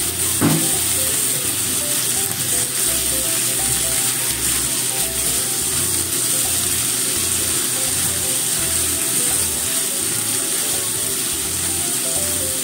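Shimeji mushrooms and cabbage sizzling steadily in a hot frying pan as they are stir-fried with chopsticks, with a single knock about half a second in. Soft background music plays underneath.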